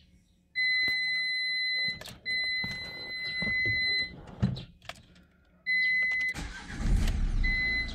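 Car instrument-cluster warning chime beeping in long steady tones while the dashboard runs its ignition-on check, then, about six seconds in, the Renault Kadjar's 1.5 dCi (K9K) diesel engine cranks and starts, settling into a running rumble with the chime sounding once more.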